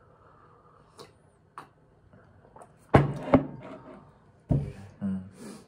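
A mug being set down on a table: a couple of hard knocks about three seconds in and another about a second and a half later, with a few small clicks before them. A brief low murmur of voice near the end.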